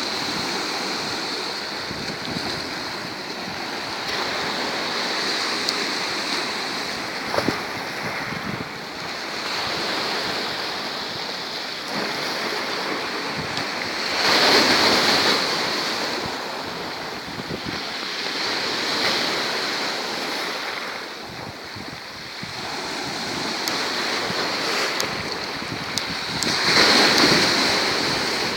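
Black Sea waves breaking on the shore, the surf swelling and easing every few seconds, with the two biggest waves about halfway through and near the end.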